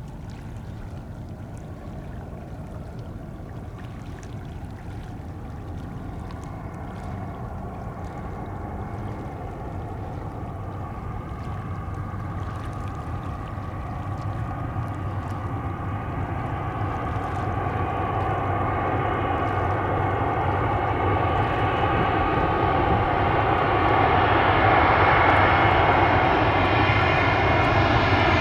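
Airbus A319-132 airliner with IAE V2500 turbofan engines on final approach, its jet engine noise growing steadily louder as it comes nearer. From about halfway, a high engine whine of several steady tones comes up over the rumble.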